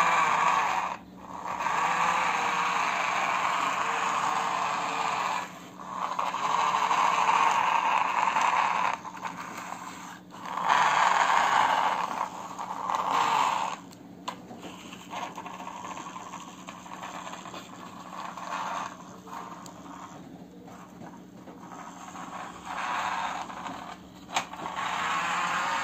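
Plastic toy excavator pushed back and forth by hand on a hard floor: its tracks and wheels whir and grind in runs of a few seconds with short pauses between them. In the second half the sound drops to quieter clicking and rattling, then one more run comes near the end.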